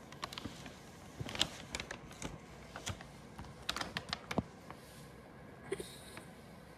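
Irregular light clicks and taps from hands working an interactive exhibit table, pressing its push buttons and moving its game pieces.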